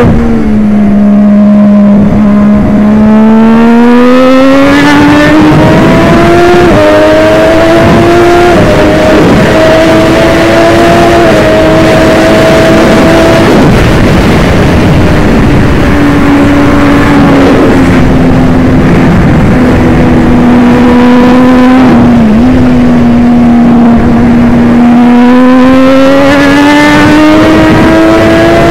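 Triumph Daytona 675 inline-three engine heard on board at racing speed over a steady wind rush. Its pitch climbs in steps through the gears, falls away around the middle, holds steady for several seconds, then climbs again near the end.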